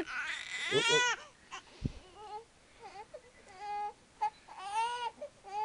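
Month-old baby fussing and crying in short pitched cries. The loudest cry rises and falls about a second in, then fainter whimpers follow.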